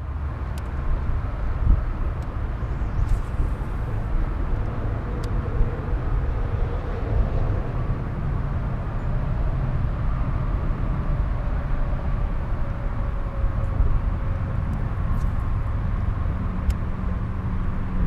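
Steady low rumble of wind buffeting the microphone, mixed with a faint engine drone that wavers through the middle, with a few faint sharp clicks.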